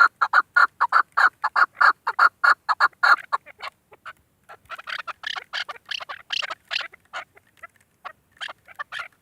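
Female chukar partridge calling: a rapid run of short clucking notes, about five a second, for the first three seconds or so, then sparser, higher-pitched scattered calls.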